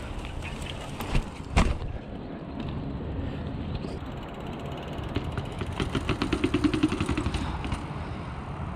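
Mountain bike going down a flight of concrete stairs: a rapid run of clattering knocks from tyres and bike over the steps in the second half. Two sharp knocks come a little over a second in, over a steady rumble of wind on the microphone.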